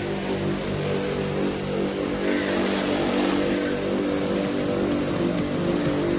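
Electric high-pressure washer running with a steady motor hum, its water jet hissing as it sprays onto a motorcycle.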